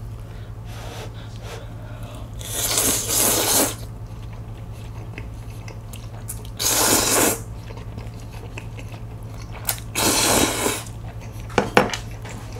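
Jjajang noodles in black-bean sauce slurped up three times, each slurp about a second long. A couple of sharp clicks come near the end, over a steady low hum.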